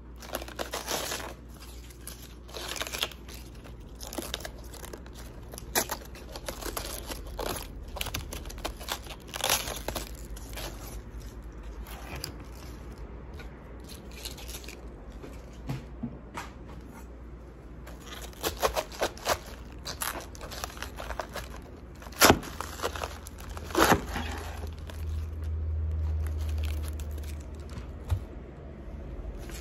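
Raw green cabbage leaves being torn off the head, crisp snapping and crunching at irregular intervals. Near the end come two louder crunches as a knife cuts through the head onto a cutting board, followed by a short low hum.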